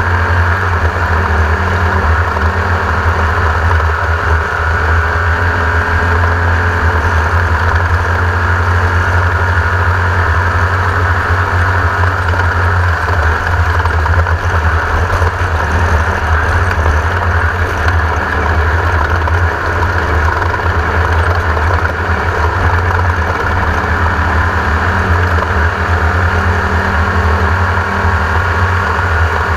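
Engine of a 1982 Raceco Class 1600 off-road race car, an air-cooled 1600 cc VW, running loudly at a steady pitch with no big rises or falls in revs.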